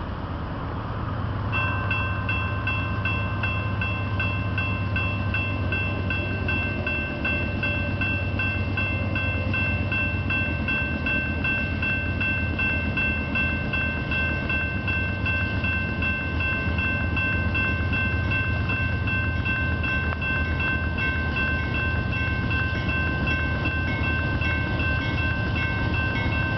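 Railroad grade-crossing bell starting to ring about a second and a half in and ringing steadily, the warning that a train is approaching. Under it runs the low rumble of an approaching BNSF freight train led by GE C44-9W diesel locomotives.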